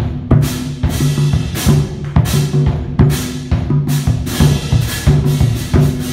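Marching bass drums struck with felt mallets, playing a quick interlocking rhythm, the low drum tones ringing on between strokes. Bright, hissing crashes come in about once a second over the drums.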